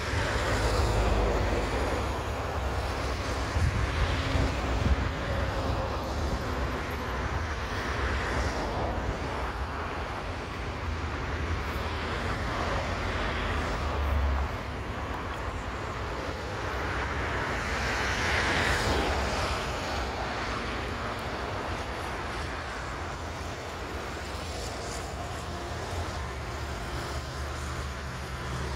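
Distant twin-engine jet airliner on approach, a steady low rumble of its engines under road-traffic noise, with a few passing swells and wind on the microphone.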